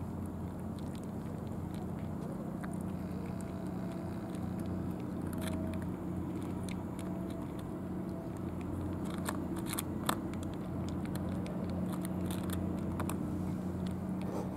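Several cats eating wet canned cat food from plastic trays: scattered small wet clicks of chewing and lapping. A steady low mechanical hum runs underneath.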